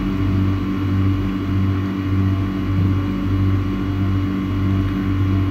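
Steady low machinery hum that swells and eases about once a second, over a constant higher drone.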